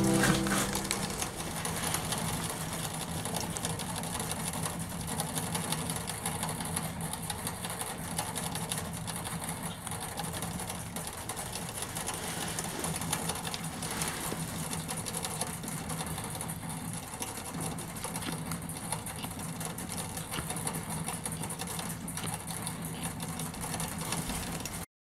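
Rabbit drinking from a bottle drinker's metal nipple spout, a rapid run of fine ticking as it licks the valve, over a steady low hum. Banjo music fades out at the very start.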